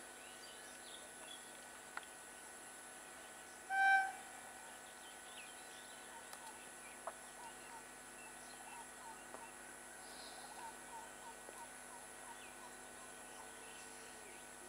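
Quiet ambience of small birds chirping and insects, with one short horn blast from the arriving EMU electric local train about four seconds in.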